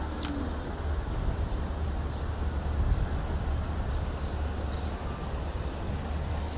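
Steady low rumble and wind noise of riding the TRBK-M2 electric hyperscooter, with one sharp click just after the start.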